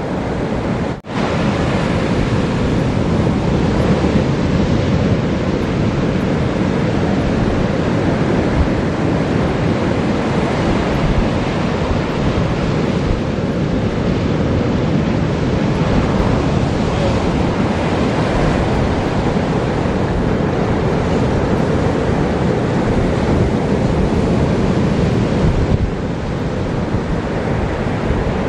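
Surf breaking and washing up a sandy beach: a steady, loud rush of ocean waves.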